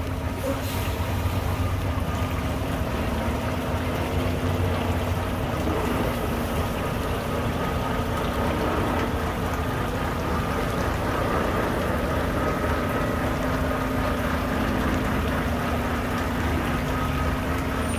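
Volvo semi truck's diesel engine running steadily as the tractor-trailer moves at low speed, a constant deep hum with a faint steady whine above it.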